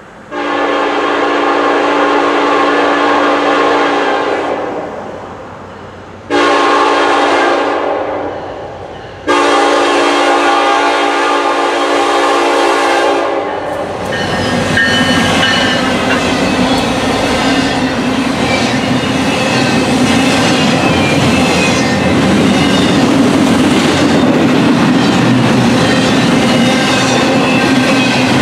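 Norfolk Southern SD70M diesel locomotive sounding its Nathan K5LLA multi-chime air horn: a long blast about half a second in, a shorter one around six seconds, then another long one. After that the locomotive and a string of double-stack intermodal cars pass close by, with steady rumbling and the clickety-clack of wheels over the rail joints.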